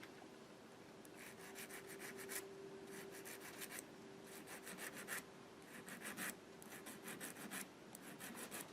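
Diamond needle file scraping on a small metal part of a sewing machine's hand drive, faintly, in runs of quick short strokes.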